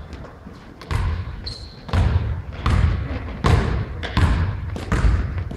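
A basketball being dribbled on a hardwood court, a steady run of bounces about every three-quarters of a second, each echoing briefly. A short high squeak comes about a second and a half in.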